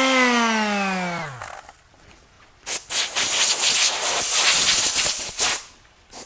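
DeWalt quarter-sheet palm sander running with a steady hum, then switched off and winding down, its pitch falling over about a second. After a short pause, a compressed-air blow gun hisses for about three seconds in a few quick blasts, blowing dust off the freshly sanded plastic part.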